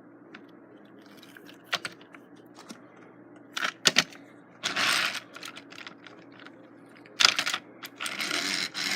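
Handling of a plastic toy train engine: scattered sharp plastic clicks and two short rustles, one near the middle and one near the end.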